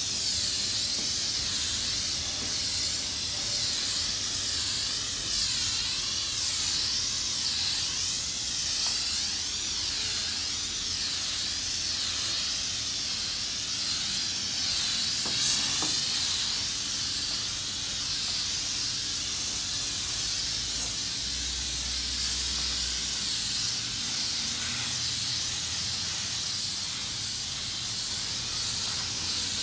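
Self-serve car wash spray wand hissing steadily as it sprays pre-soak onto a car's body, the hiss wavering as the wand sweeps across the panels.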